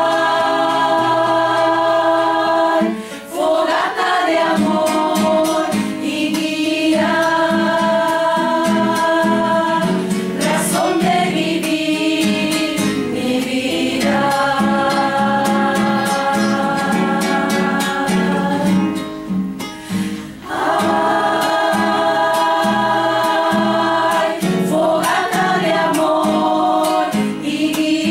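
Mixed choir singing long held chords in phrases, with a short break between phrases every several seconds, accompanied by guitar.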